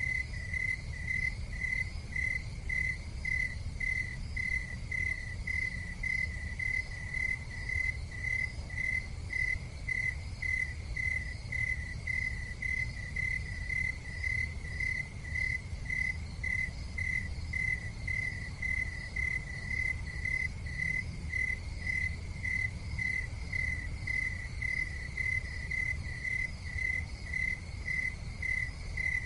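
Insect chirping steadily and evenly, about two chirps a second, over a low steady rumble.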